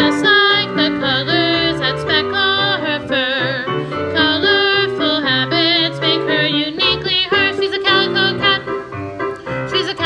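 A young solo voice singing a choral part, some notes with vibrato, over a piano accompaniment.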